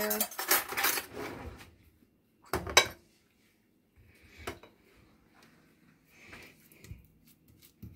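A sharp kitchen clatter about two and a half seconds in, the loudest sound here. After it come a few faint taps and clicks as a banana is sliced with a small knife over a glass bowl.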